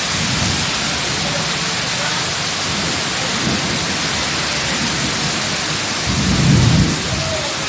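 Heavy rain pouring steadily, with low rumbles of thunder, the loudest and longest about six seconds in.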